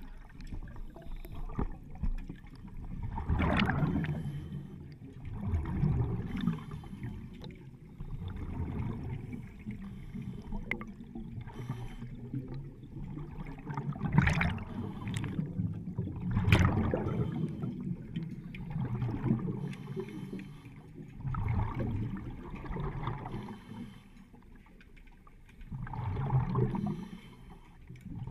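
Underwater rushing and gurgling of a commercial diver's exhaust bubbles venting from the helmet, coming in irregular surges every few seconds with a few sharper bursts.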